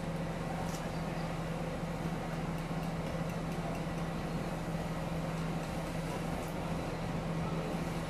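Steady machinery hum, one constant low tone over a bed of noise, with a few faint clicks.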